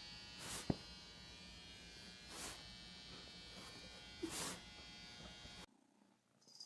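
A steady electric buzz, with a soft hiss swelling up about every two seconds and one sharp click about a second in. The buzz cuts off suddenly near the end, leaving faint sounds.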